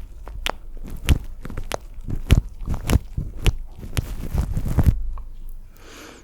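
Close-miked wet ASMR mouth sounds: a quick irregular string of clicks and smacks for about five seconds, softening near the end.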